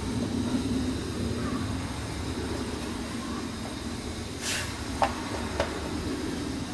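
Dough being shaped by hand on a floured wooden chopping board: a brief brushing hiss about four and a half seconds in, then two light taps about half a second apart, over a steady low rumble of background noise.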